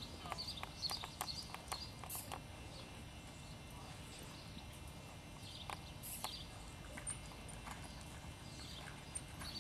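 Hoofbeats of a horse trotting and cantering on arena sand: irregular soft clicks and thuds.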